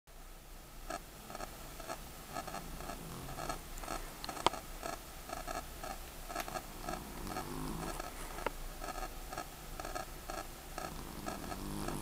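Flat-faced long-haired cat snoring in its sleep, a low rasping breath about every four seconds. A fast, steady ticking runs underneath.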